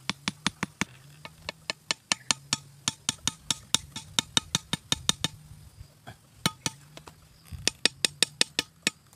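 A large knife striking bent metal wire stakes to drive them into hard ground: sharp metallic taps, about three a second, in runs with brief pauses.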